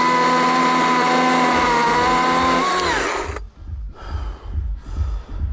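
Chainsaw running at full throttle at a steady pitch, then the throttle is released about three seconds in and the loud sound drops away.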